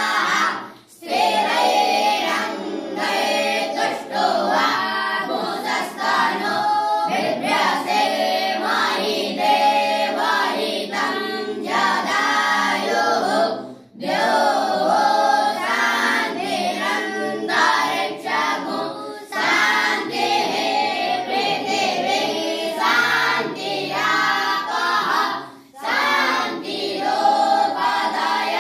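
A group of young voices singing together in unison, in long phrases broken by short pauses about a second in, about halfway through, and near the end.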